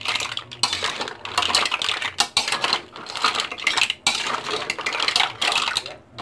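Green mussel shells clattering and scraping against each other and the cooking pan as the mussels are stirred in sauce: a dense, irregular run of clicks and clatters.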